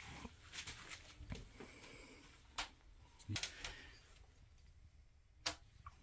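Birch firewood crackling in the closed firebox of a newly lit Romotop fireplace stove: a few faint, sharp pops and clicks at uneven intervals.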